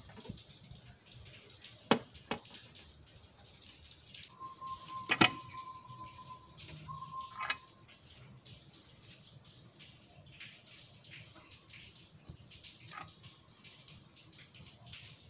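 A few sharp metal clicks and knocks from hand tools and fittings as an intercooler and its hose clamps are fitted onto the engine, the loudest about five seconds in, over a steady hiss. A faint steady tone sounds from about four seconds to about seven and a half seconds in.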